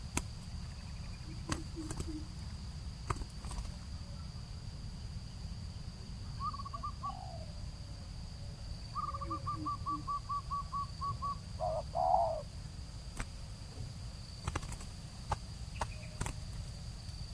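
Spotted doves cooing in short, soft, low phrases of a few notes, with another bird's quick run of clipped higher notes and a louder burst of calling about twelve seconds in. A steady high insect whine and scattered clicks run underneath.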